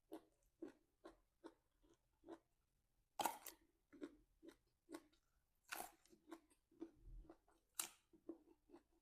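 Close-up chewing of crunchy raw vegetables at about two chews a second, with three louder crisp crunching bites about three, six and eight seconds in.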